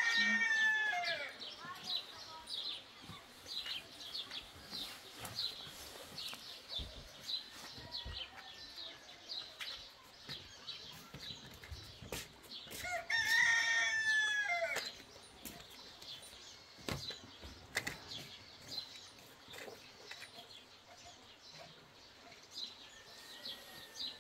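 A rooster crowing twice, once right at the start and again about halfway through, over steady chirping of small birds.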